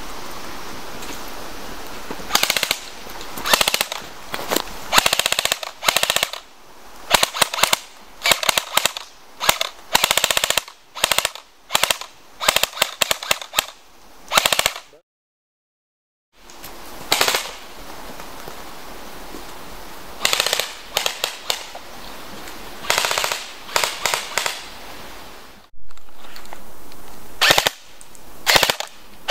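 G&P Magpul M4 CQB airsoft electric rifle (AEG) firing strings of rapid automatic shots mixed with single shots, starting about two seconds in. The sound cuts out completely for about a second midway.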